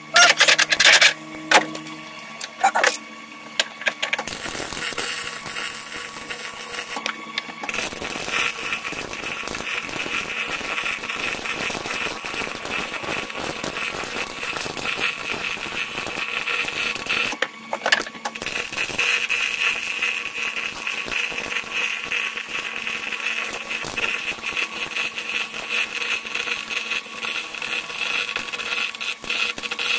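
A hammer striking a steel bracket a few times, then a MIG welder's arc crackling steadily as the bracket is welded in, stopping briefly twice.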